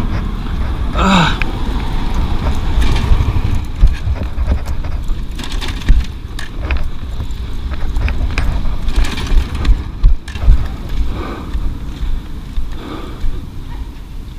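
Wind rumbling on the camera microphone with road noise while the motorcycle rolls slowly, broken by a few sharp knocks.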